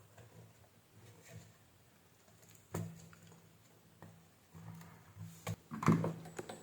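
A few sharp knocks and taps, the loudest cluster near the end, over a faint low hum that comes and goes.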